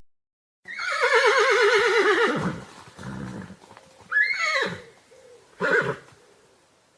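A horse whinnying: a long, quavering whinny that falls in pitch starts just under a second in, followed by two short calls.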